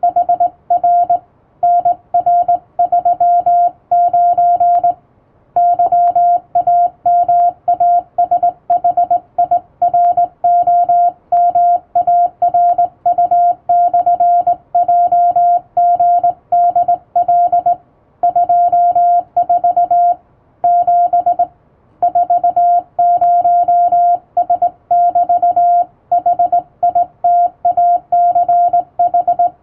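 Hand-keyed Morse code on a telegraph key, sending international Morse practice telegram text. A steady mid-pitched beep is keyed on and off in dots and dashes, with short breaks between words and a longer pause about three-quarters of the way through.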